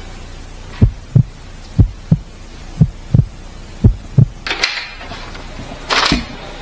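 Footsteps on a hard floor: eight low thuds in uneven pairs, about a pair a second, followed near the end by a couple of brief rustles of handling.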